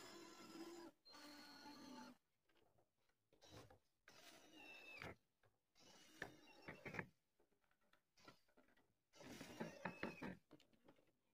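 Cordless drill running in several short bursts as it bores into and drives into a wooden upright, its motor whine dropping in pitch as it slows near the end of some runs. The sound is faint.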